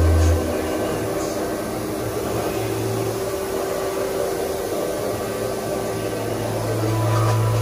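Steady low droning hum over a faint hiss. A loud low note cuts off just after the start.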